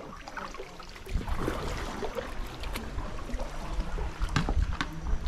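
Water splashing and dripping around a sea canoe as it is paddled, with scattered light knocks and a low rumble that starts about a second in.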